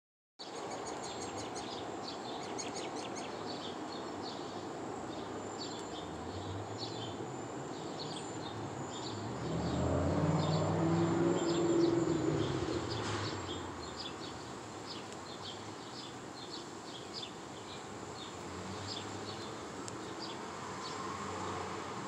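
Small birds chirping in quick, repeated short notes throughout, over a thin steady high-pitched buzz. About nine seconds in, a low engine hum swells, peaks, and fades again a few seconds later, like a vehicle passing.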